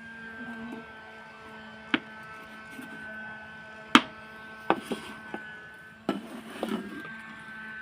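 Small objects tapped and knocked together in cooking play: single sharp taps about two seconds apart, then a quicker cluster of knocks and some clatter past the middle, over a steady faint hum.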